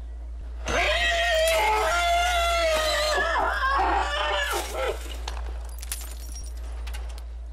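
A person's high-pitched, drawn-out scream lasting about four seconds, starting about a second in and wavering before it breaks off.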